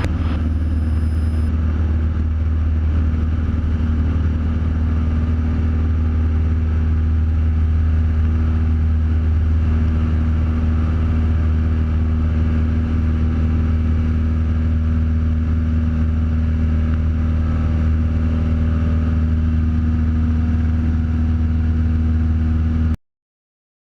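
Cessna 172 Skyhawk's piston engine and propeller running steadily at climb power just after takeoff, a loud even drone heard inside the cabin. It cuts off abruptly near the end.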